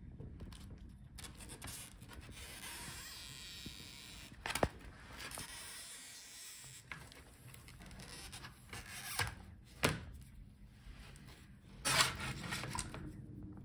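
A pry tool scraping and rubbing along the edge of a laptop LCD panel while the adhesive strips under the screen are pulled free, with a few sharp clicks, the loudest near the end.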